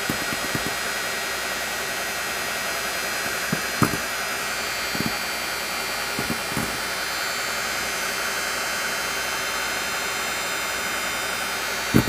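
Electric hand mixer running steadily at one speed, its whisk beaters beating eggs with a cup of oil just added, with a few short knocks along the way.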